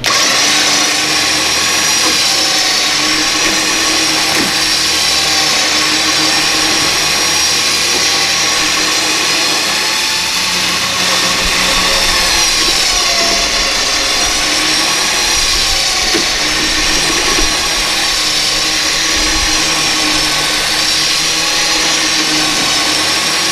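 Electric trailer winch motor starts abruptly and runs with a steady whine, winding in its cable under load as it drags a non-running car up onto the trailer.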